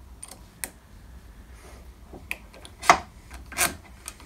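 A few light metallic clicks and taps of a hex key and bolt being fitted into a steel ball screw end bearing block, with two louder knocks about three seconds in and half a second later.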